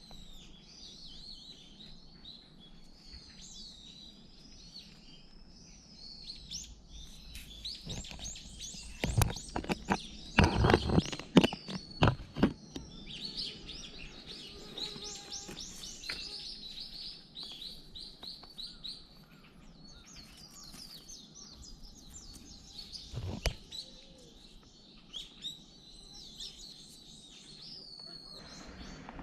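Many small birds chirping and twittering in the trees, with a cluster of loud thumps about a third of the way in and one more thump later.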